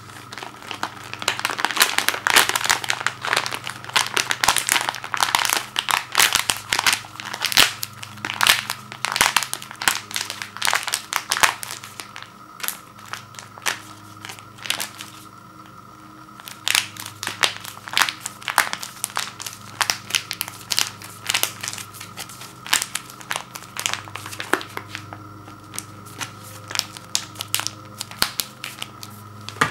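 Plastic microwavable rice pouch crinkling and crackling as it is handled and squeezed, in two spells with a quieter break about twelve seconds in. A steady faint hum runs underneath.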